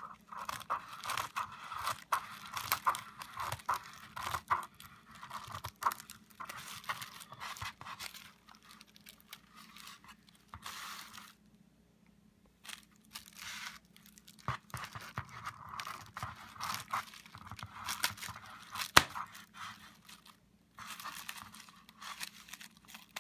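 Plastic bubble wrap crinkling and crackling as it is handled and cut with scissors, with many small sharp clicks and one louder snap about three-quarters of the way through.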